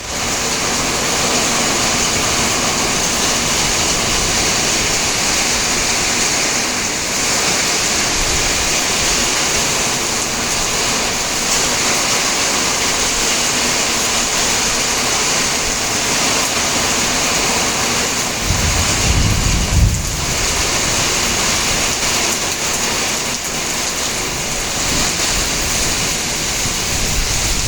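Steady rain falling, a constant even hiss, with a low rumble for about two seconds some two-thirds of the way through.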